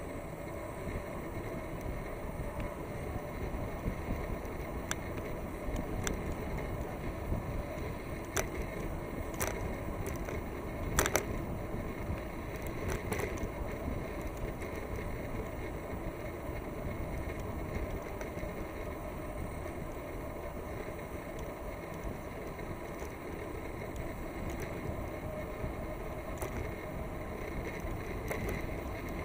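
Steady wind and rolling noise from a bicycle riding along a paved path, with a few sharp clicks and knocks from the bike, the loudest about 11 seconds in.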